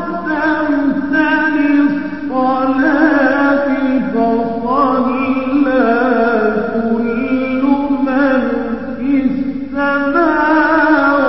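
A male voice sings an Arabic devotional verse in the style of a nasheed, in long melodic lines with rich, wavering ornaments that are broken by short breaths.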